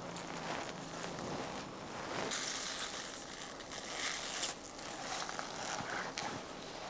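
Gloved hands mixing green onions into wet chili-pepper seasoning in a glass bowl: irregular squelching and rustling, busiest around the middle.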